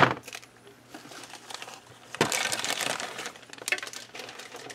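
Thin clear plastic bag crinkling as a white plastic model-kit sprue is pulled out of it, with a sharp click at the start and another about two seconds in.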